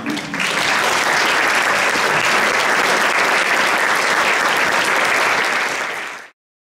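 Audience applauding in a hall, a steady clapping that stops abruptly near the end.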